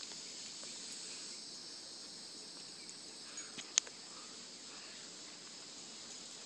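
Steady high-pitched chirring of insects in the background, with one sharp click a little past the middle.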